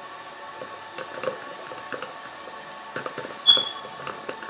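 Small clicks and taps of slime ingredients being handled and stirred in a container, with one short high squeak about three and a half seconds in.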